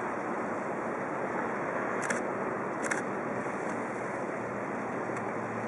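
Steady outdoor harbour noise: a rushing hiss over a faint low hum, with two short high clicks about two and three seconds in.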